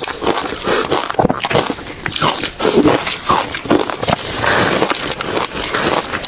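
Ice being bitten and chewed, a rapid, irregular run of crunches and crackles.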